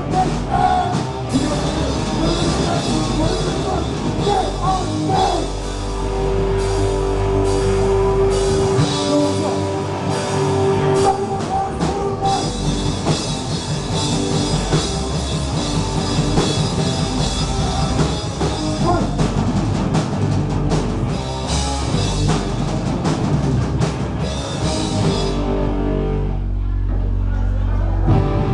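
Live rock band playing loud, with drum kit, cymbals and distorted guitars. About three seconds before the end the drums and cymbals drop out and a low note rings on.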